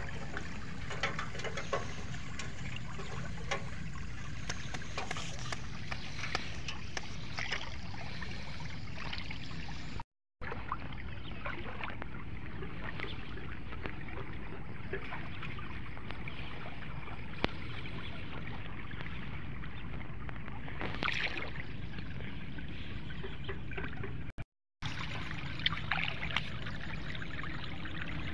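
Shallow floodwater trickling and sloshing around a person wading and handling bamboo fish traps, with scattered light knocks and rustles. The sound cuts out briefly twice.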